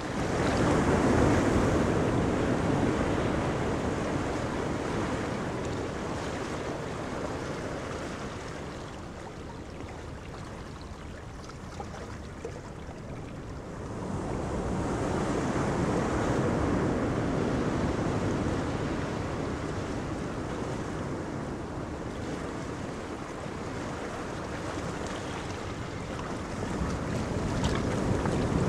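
Wind buffeting the microphone over the rush of sea water and the wake of a small fishing boat passing at speed, swelling and easing in gusts.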